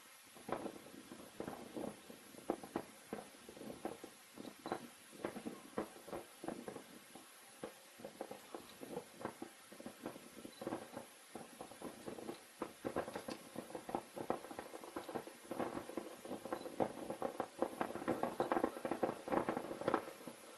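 Fireworks popping and crackling in a rapid, irregular string of sharp reports that grows denser and louder toward the end.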